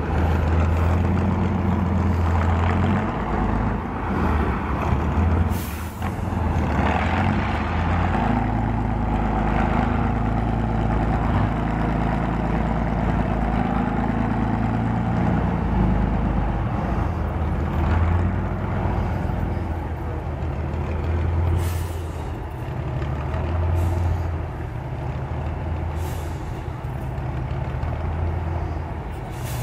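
Diesel engine of an eight-wheeled off-road trial truck labouring and revving as it climbs through a sandy hollow, with several short sharp hisses of air; the engine fades somewhat in the last third as the truck pulls away.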